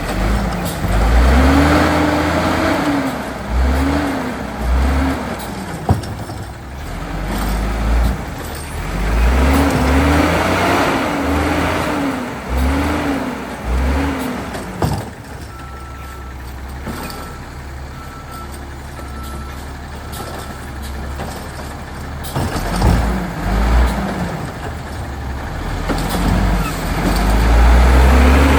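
Autocar WX automated side-loading garbage truck at work. Its engine revs up and down in short repeated surges, then a run of about six short beeps sounds in the middle. Near the end the engine climbs steadily in pitch as the truck accelerates.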